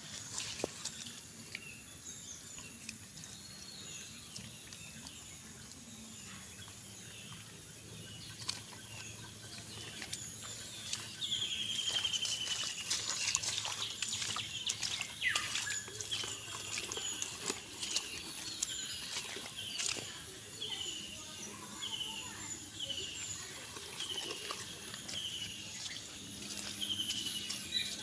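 Footsteps and splashing through wet grass and shallow puddles, with scattered clicks and rustles. From about a third of the way in, a bird repeats a short falling call about once a second.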